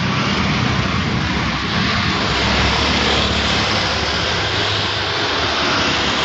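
Heavy rain falling: a loud, steady hiss with a low hum underneath.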